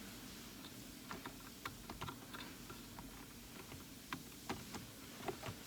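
Faint, irregular small clicks and light rattles of plastic electrical connectors and steering-column parts being handled and fitted, ending in one sharp snap.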